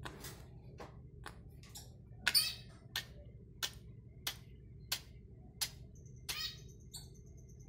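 Sick eclectus parrot giving short, sharp, click-like coughs about every two-thirds of a second, a sign of its respiratory illness. A thin high whistle sounds near the end.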